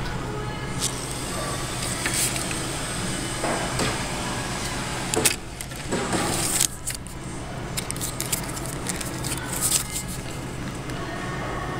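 Close handling noise: fingers rustling and clicking against cardboard price tags and a skeleton decoration right by the microphone, with a few louder knocks about five to seven seconds in. A steady low hum of store background runs underneath.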